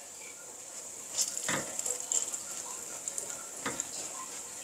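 A flatbread cooking in a frying pan over low heat, with a faint steady sizzle. There are a few light clicks and knocks of kitchenware, the clearest about one and a half seconds in and again near the end.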